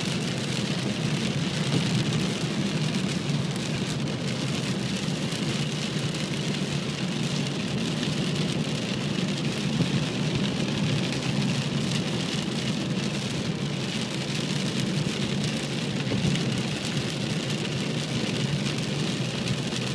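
Rain on a moving car and tyre noise on a wet freeway, heard inside the cabin: a steady wash of rain and spray over a low, even road rumble.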